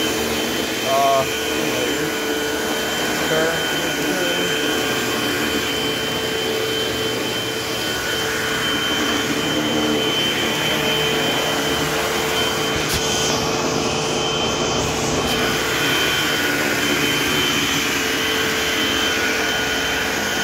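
Eureka AirSpeed AS1101 upright vacuum cleaner running steadily, a whooshing rush with a steady whine. About thirteen seconds in, its highest hiss drops away for a couple of seconds, then returns.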